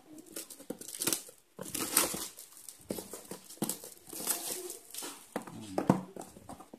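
Clear plastic shrink wrap being peeled and torn off a cardboard router box, crinkling irregularly as the box is handled.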